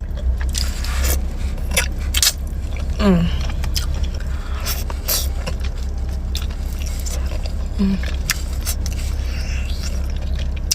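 Close-up eating sounds of oxtail being eaten: scattered clicks, scraping and wet chewing, with a couple of short hummed voice sounds, over a steady low hum.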